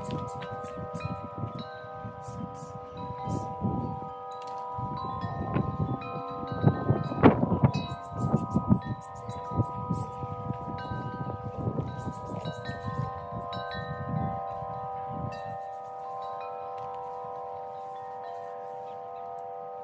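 Wind chimes ringing steadily, several overlapping tones with frequent light strikes. Under them, a patio umbrella is closed and its mesh netting is bundled up, rustling and handling noise that is loudest in the middle and stops a few seconds before the end.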